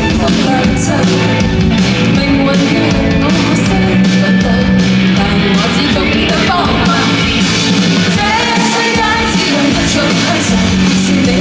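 Live band playing a song with singing, loud and continuous.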